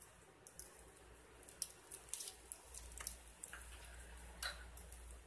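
Faint handling noise from a computer power supply's cable bundle: scattered small clicks and taps of plastic connectors and wires being moved about, with a low hum underneath from about halfway in.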